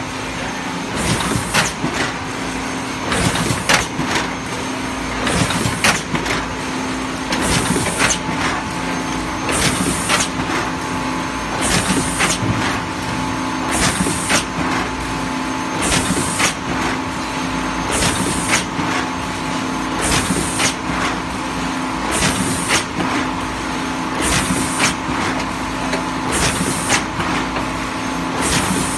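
LITAI TTF-520AF cup-lid thermoforming machine running in production: a steady hum, with a hiss and clatter about every two seconds as each forming cycle repeats.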